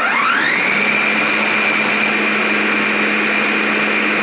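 Food processor motor spinning up with a rising whine in the first half second, then running steadily at full speed as it blends a liquid marinade of garlic, ginger, chilli, honey and soy sauce.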